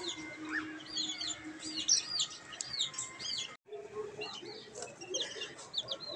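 Chicken chicks peeping: a rapid run of short, high, arched cheeps repeated several times a second, with a brief break a little past halfway.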